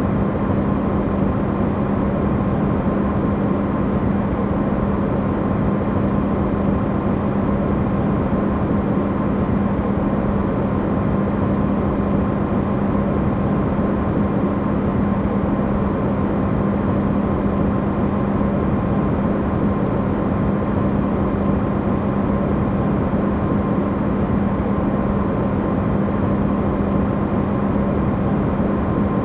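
Electrolux refrigerator running, recorded amplified: a steady, unbroken hum with an even rushing noise beneath it, used as white noise.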